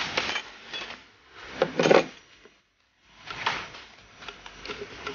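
A spoon scraping and clinking against bowls as ingredients are scraped into mashed potatoes and stirred. It comes in irregular bursts, the loudest a little under two seconds in, with a brief pause in the middle.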